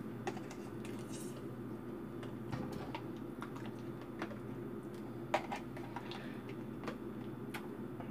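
Scattered soft clicks and taps from a plastic mayonnaise jar being shaken upside down over a pot of diced potatoes, with a steady low hum underneath.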